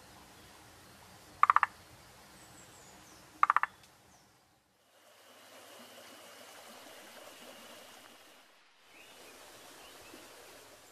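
Two short animal calls about two seconds apart, each a quick run of three or four pulses, over a faint steady hiss. From about five seconds in, the background changes to a faint steady noise with a thin high tone, broken by two brief drop-outs.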